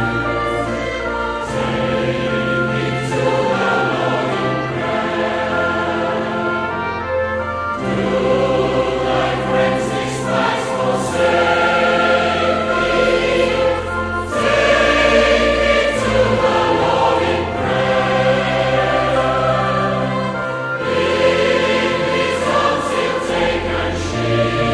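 Choir singing a hymn, with held chords changing every second or two.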